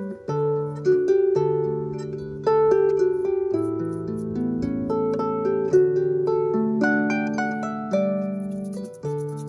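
Background music of gently plucked strings, each note starting sharply and ringing away as the next comes in, in a slow, even melody.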